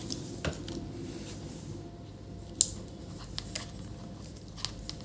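Scattered light clicks and taps of multimeter probes being set on the monitor's power supply board to check its output voltages, the sharpest about two and a half seconds in, over faint steady background noise.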